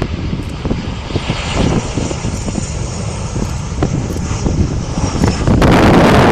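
Jet airliner's engines running as it flies by: a steady low rumble with a faint high whine that slowly falls in pitch. Near the end a loud rush of wind noise on the microphone suddenly takes over.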